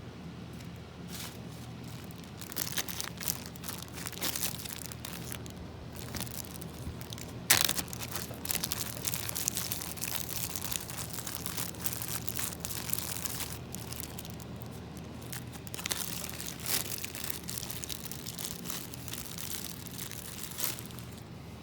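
Slime being squeezed and pressed by hand, giving a stream of irregular crackles, pops and crinkles, with one sharp, loud pop about seven and a half seconds in.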